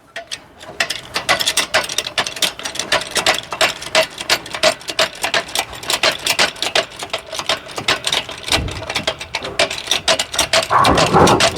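Pinion shaft of a Brunswick GSX pinsetter drive being forced out through its bearings in a hydraulic press: a rapid, irregular run of clicks and ticks as the shaft moves, with a louder grinding creak near the end.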